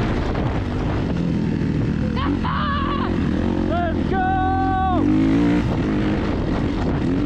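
Off-road vehicle engine running steadily, with a person's voice calling out twice in the middle, the second call held for about a second.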